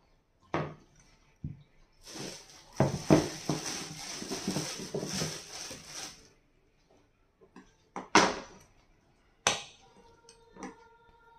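A thin plastic bag crinkling for about three seconds as eggs are pulled out of it, then two sharp clinks on a steel mixing bowl.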